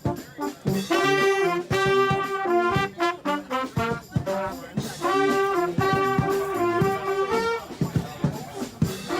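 Street brass band playing: horns sound phrases of held notes over steady drum hits, dropping out for a moment about three and a half seconds in while the drums carry on.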